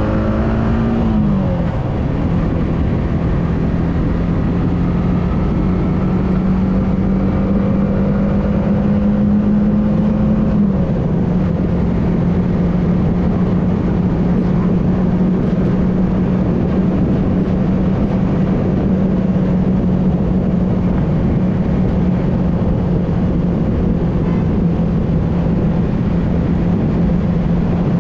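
Yamaha R15 motorcycle's single-cylinder engine running at cruising speed over a steady rush of wind and road noise. The engine note drops suddenly about a second in, rises slowly, then steps down again about eleven seconds in and holds steady.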